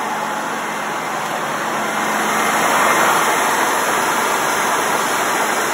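1996 Ford F-150 engine running at a high idle just after a hard start, heard at the open engine bay as a steady rushing noise that grows a little louder about two seconds in.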